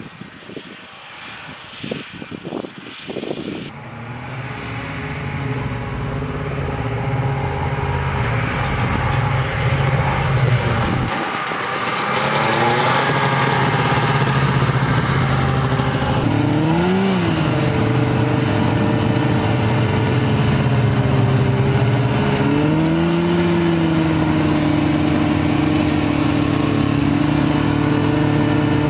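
Snowmobile engine running, growing louder as the machine draws near, then heard up close from on board a Polaris snowmobile. About two-thirds of the way through the engine revs up and drops back once, then steps up to a steady higher pitch.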